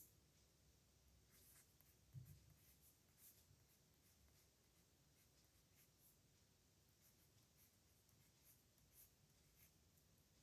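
Faint scratching of a pen on paper in short, irregular strokes, as words are handwritten. A soft low bump comes about two seconds in.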